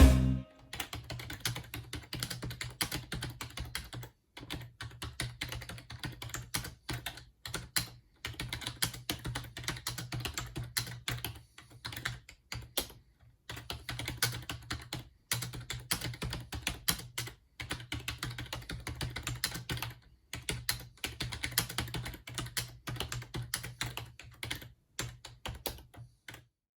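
Typing on an Acer Versato 6512-UV keyboard: fast, continuous runs of key clicks, broken by a few brief pauses.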